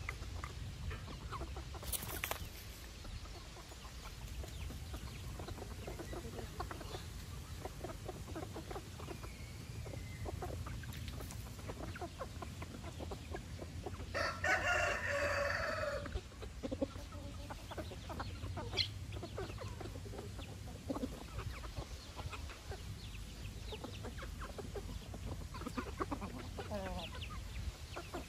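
A flock of chickens clucking as they feed, with short scattered calls throughout. About halfway through, a rooster crows once, for about a second and a half, and this is the loudest sound.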